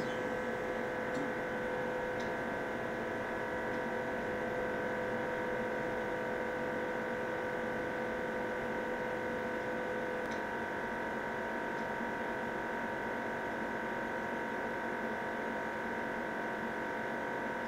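Steady machine hum with several steady whining tones from a helium leak-test station running its automated test cycle. A lower tone in the hum stops about ten seconds in.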